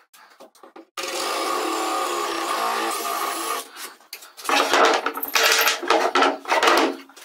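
Cordless drill running and boring into wood with a steady, shifting whine, then several loud rasping bursts of the bit or tool chewing through wood.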